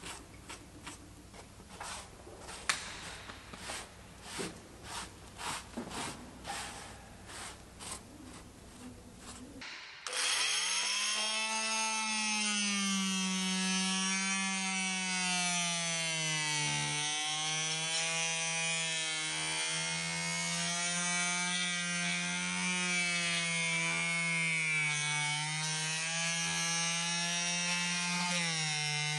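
Cloth rubbing over a fibreglass deck in faint, repeated strokes, then, about a third of the way in, an oscillating multi-tool starts and runs steadily with a buzzing whine, its pitch wavering slightly as the blade cuts through the old bedding sealant around a deck fitting.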